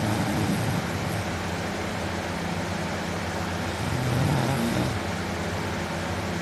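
A man snoring loudly in deep sleep: two snores about four seconds apart, one at the start and one about four seconds in, over a steady low hum.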